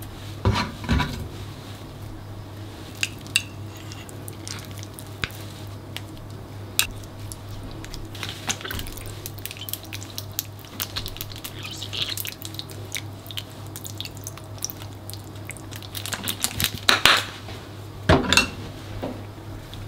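Kitchen handling sounds as toppings and seasonings go into a stainless steel pot of rice: scattered light clinks and taps, with louder clatters near the start and twice near the end, over a steady low hum.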